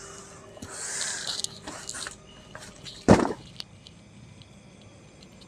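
Rustling and shuffling of a person moving close by, then one loud, sudden thud about three seconds in. Faint insects chirp steadily in the background.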